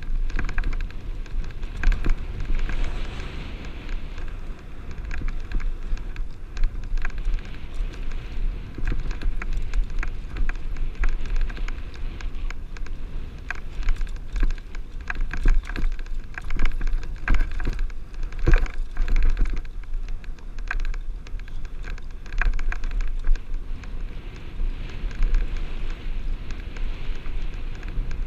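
Mountain bike ridden over bumpy sandstone slickrock, heard from a helmet-mounted camera: a steady low wind rumble on the microphone with a constant clatter of small knocks from the tyres and bike over the rock.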